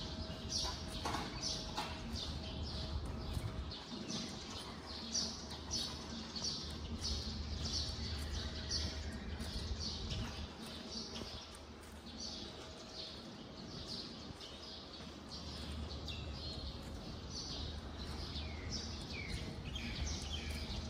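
Birds chirping, with many short, high calls repeating one after another and a few falling notes near the end, over a steady low rumble.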